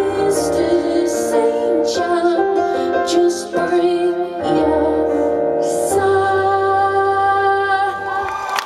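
Live band music: sustained keyboard and piano chords over a deep bass, with a woman singing, as the song's final bars play out. The chords change every second or so, and the music thins out near the end.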